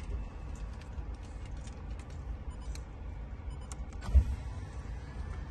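Low steady rumble inside a car's cabin with light scattered clicks, and one sharp thump about four seconds in.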